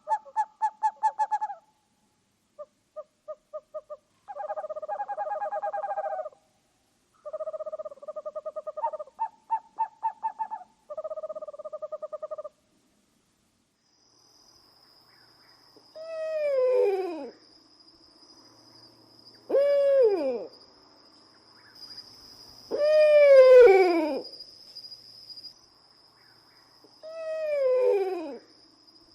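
Owls calling. Rapid quavering trills fill the first half. After a short pause come four drawn-out calls, each sliding downward in pitch, over a faint steady high-pitched tone.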